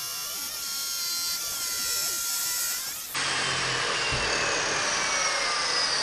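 Porter-Cable PCE700 14-inch abrasive chop saw grinding through steel angle iron, then, from about three seconds in, the motor spinning down after the cut with a slowly falling whine. A dull knock about four seconds in.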